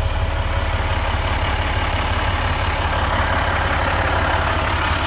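The MaxForce DT inline-six diesel of a 2013 International 4300 dump truck idling steadily, heard from inside the cab.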